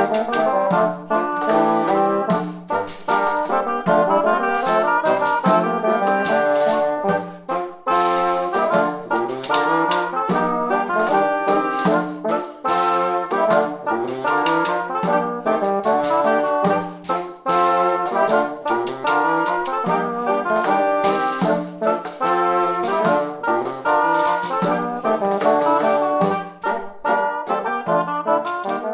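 Renaissance double-reed band, shawms and dulcians, playing a tune in several parts with strong, reedy tones over percussion that marks a regular beat.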